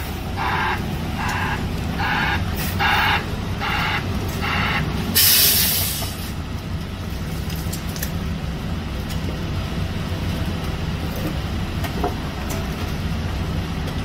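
Concrete mixer truck's diesel engine running steadily while it reverses, its backup alarm beeping about one and a half times a second for the first five seconds. About five seconds in, a loud burst of air hiss as the air brakes are set, after which the engine runs on alone.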